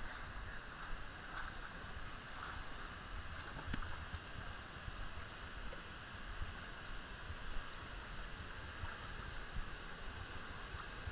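Steady rush of a waterfall pouring into a pool, with wind buffeting the microphone in uneven low rumbles.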